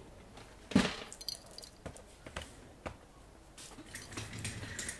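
Light handling sounds on a workbench: a ThinkPad T500 laptop is set down on a cutting mat. There is a soft knock about a second in, a few small clicks, then a short low rub near the end.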